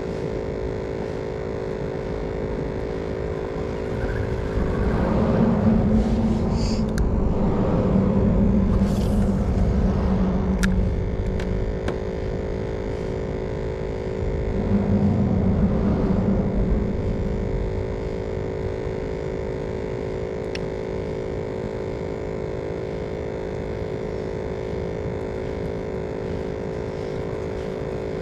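Road traffic on a bridge overhead: a steady low rumble and hum, with vehicles crossing louder twice, a long swell from about 4 to 11 seconds in and a shorter one around 15 to 17 seconds in.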